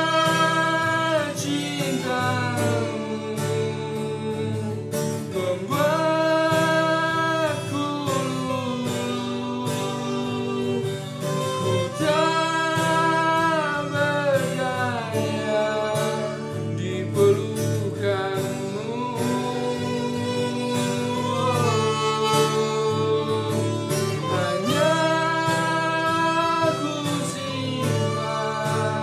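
A song: a singer's long held notes that slide up and down between phrases, over a steady backing with a regular beat.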